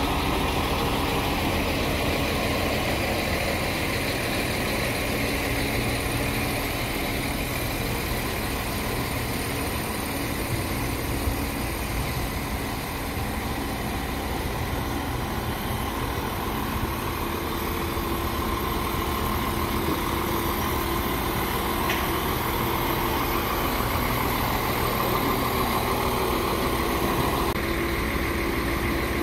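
RA2 diesel railbus standing at the platform with its diesel engine idling steadily.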